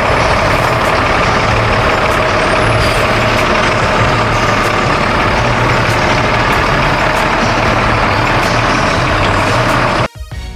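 Military tactical cargo truck's diesel engine running loud and steady close up, with a low hum under a dense mechanical din; it cuts off suddenly near the end.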